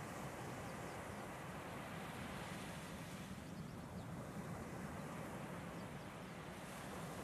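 Steady rushing outdoor noise of wind and distant surf by the sea.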